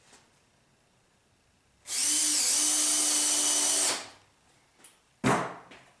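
Electric drill-driver running for about two seconds, its pitch dipping briefly soon after it starts, then stopping; about a second later comes one sharp knock.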